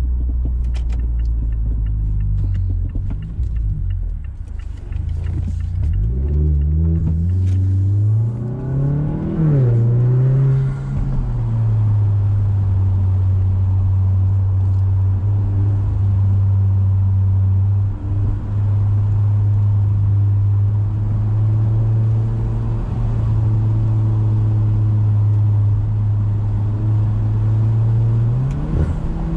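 Mazda6's four-cylinder engine and exhaust heard from inside the cabin while driving. The revs climb and then fall back with an upshift about a quarter of the way in. The engine then holds a steady cruising drone, and the revs start to climb again near the end.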